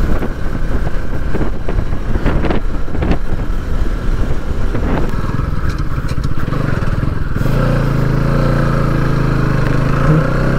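Bajaj Pulsar NS200 single-cylinder motorcycle engine running while riding. For the first seven seconds or so it comes with rough, gusty buffeting; after that the engine note settles into a steady, even hum.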